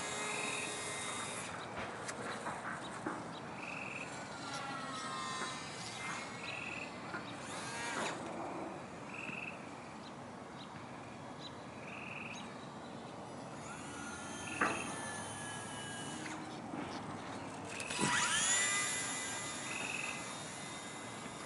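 Electric motor and propeller of a battery-powered radio-controlled model plane whining overhead, its pitch sliding up and down with throttle and passes. It is loudest a little before the end. A short chirp repeats about every three seconds in the background.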